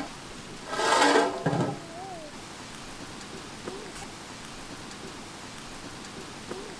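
A large aluminium cooking pot's metal lid clattering and scraping onto the pot about a second in, ringing briefly, then a steady crackle and hiss from the wood fire under the pot.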